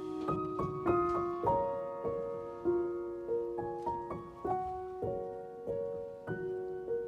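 Soft background piano music: slow, gentle notes struck about twice a second, each ringing and fading.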